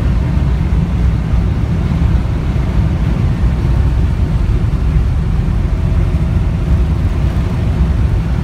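Steady low rumble of an airliner's engines and air systems heard inside the passenger cabin, with the plane on the ground before takeoff.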